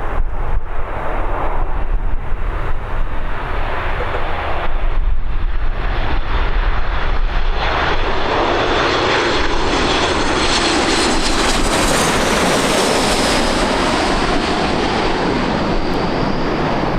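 Boeing 737 MAX 8 jet, with CFM LEAP-1B engines, passing close as it arrives. The engine whine and roar swell to a peak a little past the middle and then ease slightly. Gusting wind rumbles on the microphone underneath.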